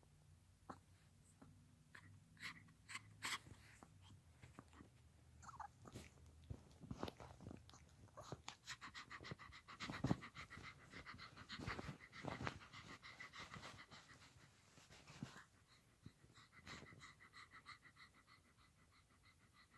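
An 18-year-old toy poodle panting hard with rapid gasping breaths, the fastest and loudest run in the middle stretch. A few sharp clicks come in the first few seconds.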